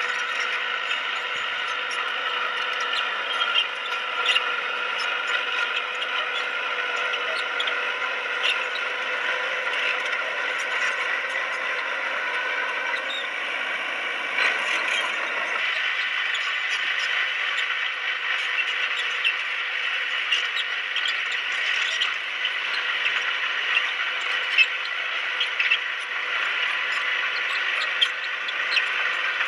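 Komatsu D20P crawler bulldozer working: a steady mechanical whine with scattered squeaks and clicks from the machine and its tracks, thinning out about halfway through.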